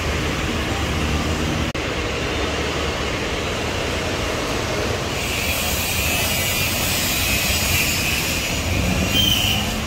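Steady construction-site din: a broad machinery rumble with no single clear source. About halfway through, a higher hiss and whine join in, and a short high tone sounds near the end.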